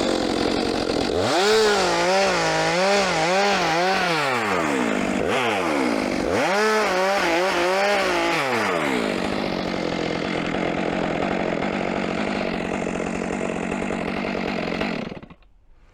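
Chainsaw cutting firewood rounds. The engine revs up and its pitch wavers under load through a cut about a second in, falls back, then revs into a second cut about five seconds in, before settling into a steadier sound that stops abruptly near the end.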